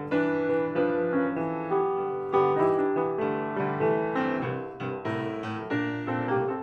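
Solo piano music: a melody of held notes, a new note or chord struck about every half second.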